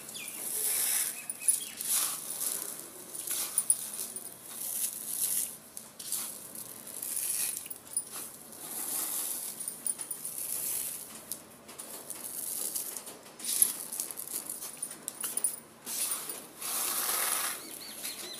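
Dry vermicelli strands crackling, snapping and rustling as they are crushed and broken between the hands on a plate, in uneven bursts with scattered sharp clicks.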